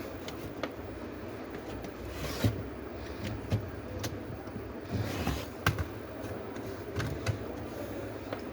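Scattered clicks, knocks and short rustles of a laptop's parts being handled as a replacement motherboard is fitted into the chassis, over a steady low background hum.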